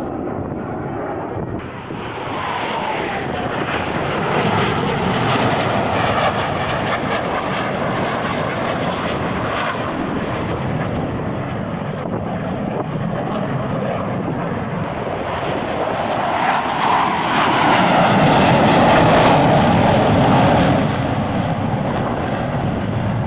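Airplane engine noise from aircraft flying past. A falling pitch sweeps by a couple of seconds in, and the sound swells to its loudest a little past two-thirds of the way through before easing off.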